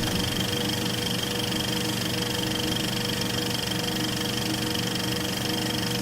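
A machine running steadily: a constant humming whirr with a fast, fine rattle and a thin high whine over it.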